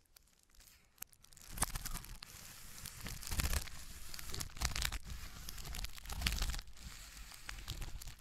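Scissors cutting through a white plastic bubble mailer, the plastic crinkling with many short sharp crackles as it is cut and handled. The sound starts after a short quiet spell about a second and a half in.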